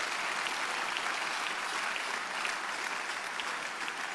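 Congregation applauding steadily, a dense patter of many hands clapping that slowly begins to fade near the end.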